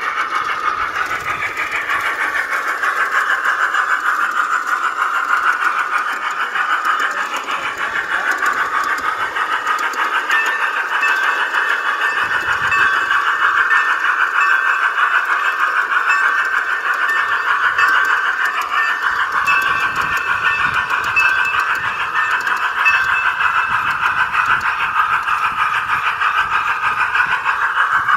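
G-scale model locomotive's sound effects played through a bad onboard speaker: a steady, thin, tinny running sound with almost no low end, squeezed into a narrow midrange band.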